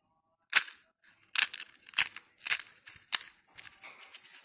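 Hollow fried semolina gol gappa puris cracking as they are pressed and broken open by hand: about five sharp cracks roughly half a second apart, then fainter crackling near the end. The dry crackle shows the shells are fried crisp.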